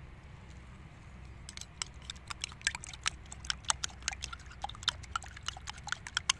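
Metal spoon beating eggs in a glass bowl, clinking rapidly against the glass several times a second, starting about a second and a half in.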